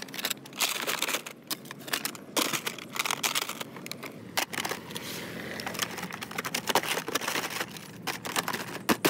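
Small hard objects being handled and worked: an irregular run of sharp clicks and taps mixed with crinkling.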